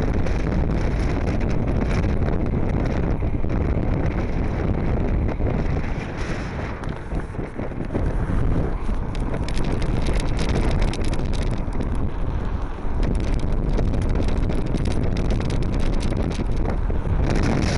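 Wind rumbling hard on the microphone of a handheld camera aboard a moving Blokart land yacht, easing briefly about six seconds in.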